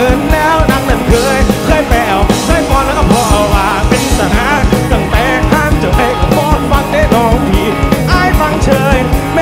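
A rock band playing live: a male lead singer sings over a drum kit keeping a steady beat, with electric guitar.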